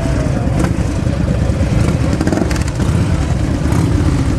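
Several cruiser and chopper motorcycles idling together in a line: a loud, steady, low rumble.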